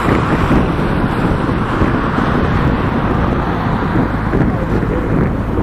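McDonnell Douglas MD-11F freighter's jet engines at takeoff power: a loud, steady rumble with a hiss above it.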